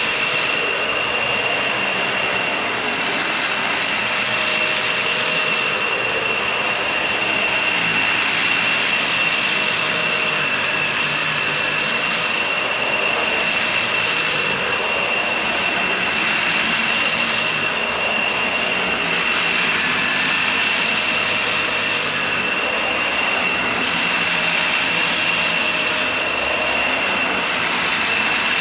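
Vacuum cleaner running steadily over a shaggy rug, with a high whine and a rushing hiss that swells and dips every few seconds.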